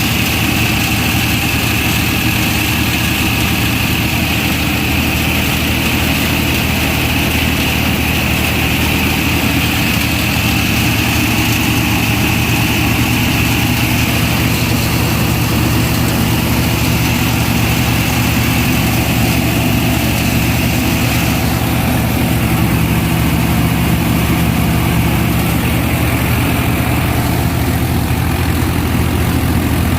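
Tractor-mounted combine harvester running steadily under work: a Swaraj 963 tractor's engine driving a Gill double-rotor machine that cuts, threshes and chops straw. A steady high whine runs over the engine hum and fades away near the end.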